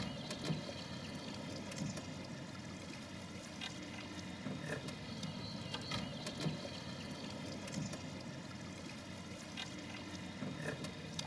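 Sound aboard a small boat on a river: water moving against the hull over a steady low hum, with a few faint knocks.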